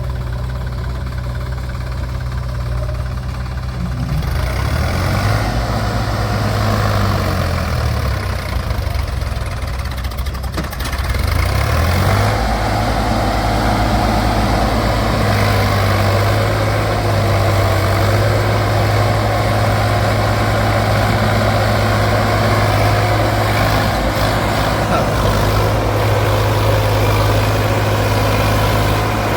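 Heavy diesel engine of a working machine, idling with its note rising and falling between about 4 and 12 seconds. From about 12 seconds it runs louder and steadier at a higher speed.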